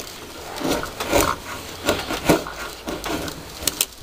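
A knife blade shaving curls from a wooden stick while carving a feather stick: several uneven scraping strokes of the edge along the wood.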